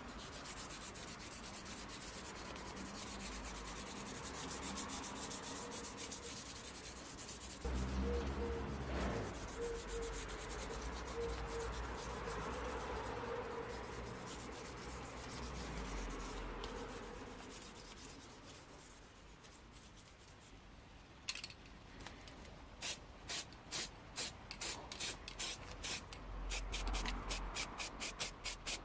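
Sandpaper rubbed by hand over a painted metal blade, a steady scratchy back-and-forth, then quick short strokes at about three a second in the last several seconds.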